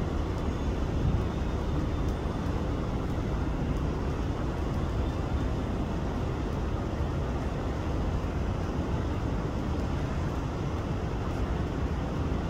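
SRT diesel railcar set running as it pulls away along the track, a steady low rumble.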